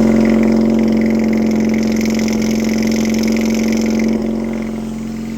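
770cc boxer twin flathead engine of a Craftsman garden tractor running steadily through a tractor-stack exhaust shortly after a cold start, sounding hearty; about four seconds in it settles slightly quieter.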